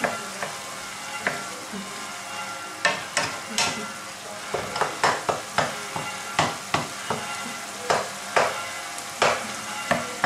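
Wooden spoon stirring and scraping minced pork and vegetables in a deep non-stick frying pan, the strokes coming in quick irregular runs over a steady sizzle. The sizzle is white wine simmering in the mince as its alcohol cooks off.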